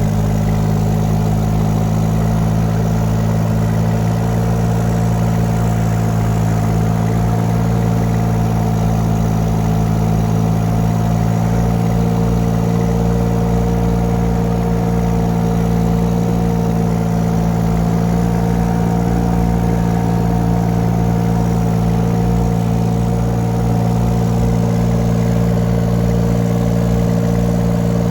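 Mini excavator engine running steadily at raised revs while the machine travels in high gear, an even, unchanging drone.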